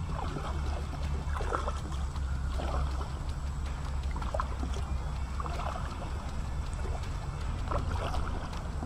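Kayak paddle blades dipping and pulling through the water, a stroke every second or two, over a steady low hum.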